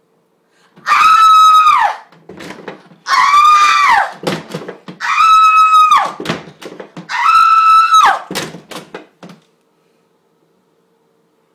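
A person screaming four times, loud and high-pitched, each scream about a second long and trailing down in pitch at its end, with quieter gasps and noise between them.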